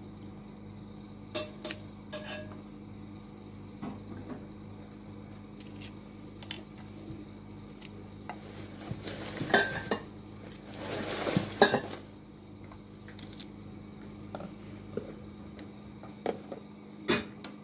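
Kitchen knife and fingers working green chillies on a ceramic plate: scattered sharp clicks of metal on the plate, with a longer stretch of scraping and rustling about ten seconds in.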